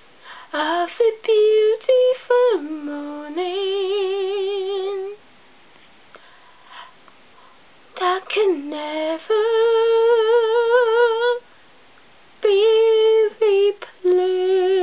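A woman singing alone, unaccompanied, holding long notes with a wavering vibrato. She sings in three phrases with pauses of a second or more between them.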